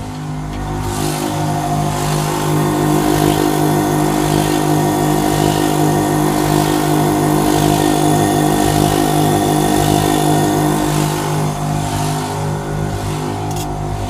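A pair of Extreme Outback 24V electric air compressors running steadily, pumping up the truck's air system, with a hum and hiss. The sound grows louder about a second in and eases off near the end, where there is a short click.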